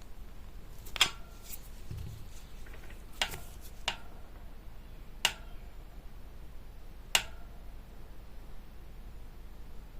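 Bafang SWXK2 front hub motor clacking: about six sharp clacks at uneven intervals, each with a short ring, the loudest about a second in. The clack appears only when the motor's left-side axle nut is tightened.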